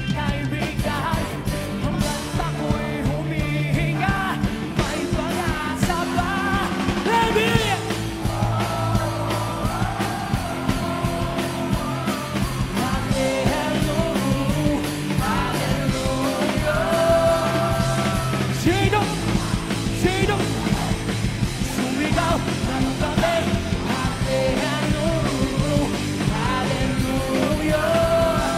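Rock band playing live, with a man singing over electric guitar and drums.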